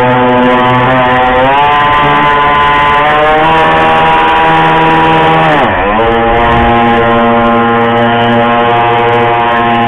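A boat motor running steadily, its pitch wavering, then dropping sharply about six seconds in and climbing back to speed.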